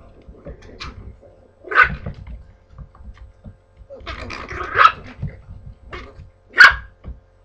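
Puppies barking during rough play: a short sharp bark about two seconds in, a cluster of barks around four to five seconds, and the loudest bark near the end. Between the barks there are low bumps and scuffles of paws and bodies on the floor.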